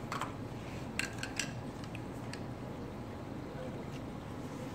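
A few light plastic clicks and knocks as a white PVC pipe union is handled against the acrylic scrubber box, bunched in the first two and a half seconds. Under them runs the steady hiss of bubbling water in the aquarium sump.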